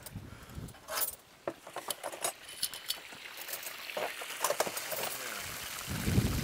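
Battered frozen ice creams on sticks deep-frying in a steel wok of hot oil: the oil sizzling and bubbling with scattered crackles and pops.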